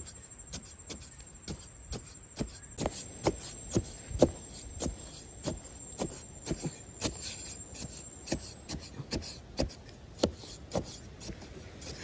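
Machete blade stabbing again and again into dry sandy soil, dull chops and scrapes about twice a second at an uneven pace, as the ground is loosened for digging a hole.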